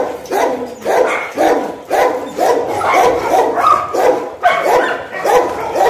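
Dogs barking over and over, about two barks a second, with no break.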